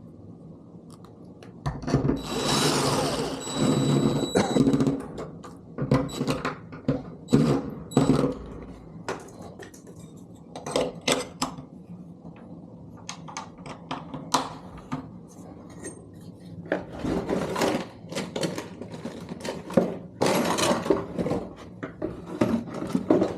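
Lever lockset being fitted to a door: a string of sharp metal clicks and knocks from the lock parts, screws and hand tools, with a few longer, louder stretches of handling noise.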